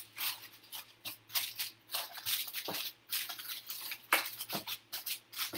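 Aluminum foil crinkling in irregular crackles as it is pressed by hand into a square baking pan.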